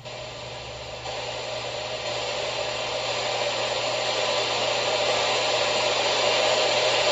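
A steady rushing, hissing noise that grows gradually louder, with a low hum under it.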